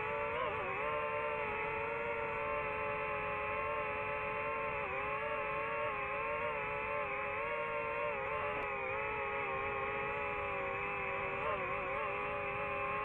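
DJI FPV drone's motors and propellers whining steadily in flight, several tones that rise and dip together as the throttle changes, with a wobble just after the start and another near the end.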